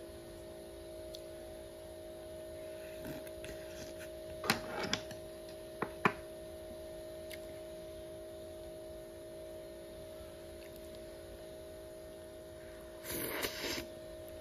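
Spoon and chopsticks clinking against a bowl while eating: a few sharp clinks between about four and six seconds in, and a short clatter near the end, over a steady low hum.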